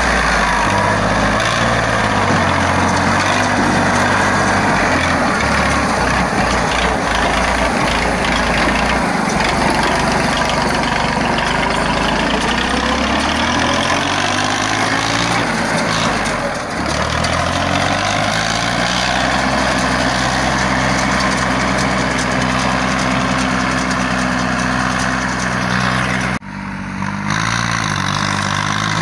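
Yanmar YM3000 tractor's three-cylinder Yanmar 3T84 diesel running under load while towing a mini round baler through straw. The baler's mechanism adds a steady clatter. The engine pitch dips and recovers about halfway through. The sound breaks off sharply near the end, then the engine is heard from farther off.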